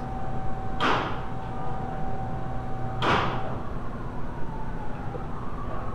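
Two short scraping noises about two seconds apart over a steady hum, with a faint siren wailing and gliding in pitch during the second half.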